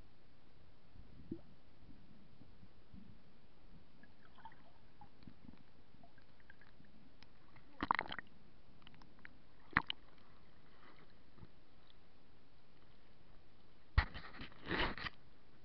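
Water sloshing and splashing around a camera moved in shallow pond water: mostly a faint steady hiss with muffled underwater sounds, a burst of sloshing as the camera breaks the surface about halfway through, a sharp knock soon after, and a gloved hand splashing in the water near the end, the loudest moment.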